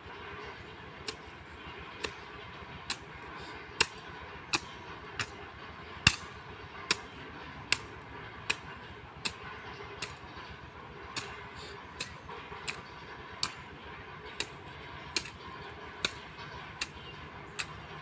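A hand hoe chopping into the soil while weeding: sharp, regular strikes a little under once a second.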